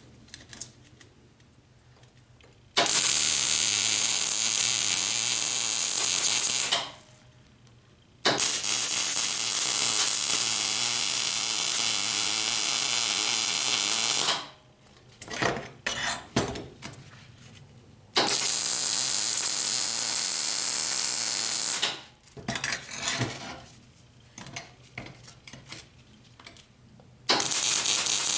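MIG welder arc crackling and frying in four long weld runs of about four to six seconds each, starting about three seconds in, with short sputtering bursts of stop-start welding between them. The weld is laid onto a plate cut from galvanized dock hardware, a coating the welder blames for his poor welds.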